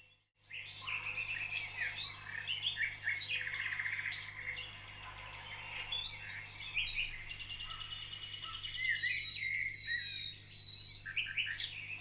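Several songbirds singing at once, with overlapping quick high chirps, trills and short sliding notes. They start about half a second in, after a brief silence.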